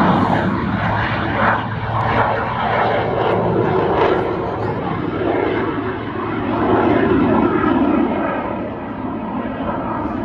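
Jet Waco biplane's engines running hard as it climbs steeply and arcs over, a dense, noisy rumble that swells and eases in loudness several times.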